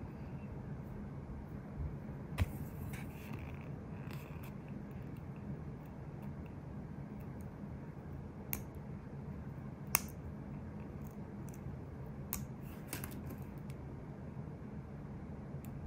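Sparse small clicks and taps of metal tweezers picking a tiny sticker off a paper sticker sheet and setting it on a fingernail, with a brief paper rustle early on, over a steady low hum. The sharpest clicks come about two and a half seconds in and about ten seconds in.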